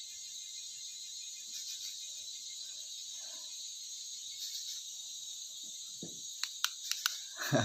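Steady high-pitched chorus of crickets or similar insects. A few sharp clicks sound near the end.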